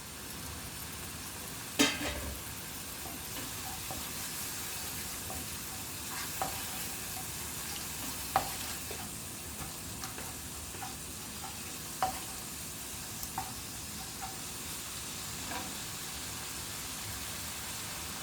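Minced mutton sizzling gently in a pan as it is stirred, with a few sharp knocks of the stirring utensil against the pan, the loudest about two seconds in.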